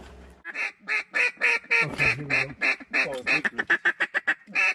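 Duck call blown in mallard hen quacks: a loud string of short, evenly spaced quacks, about four a second, that quickens into a fast, softer chatter near the end before one last loud quack.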